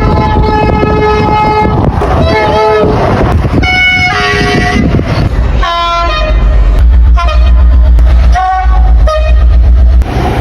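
Train horns sounding in a string of blasts: a long multi-tone chord for about the first two seconds, then several shorter blasts of differing pitch. A heavy low rumble runs under the second half.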